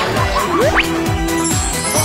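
Upbeat background music with a steady beat, with a quick rising glide about halfway through.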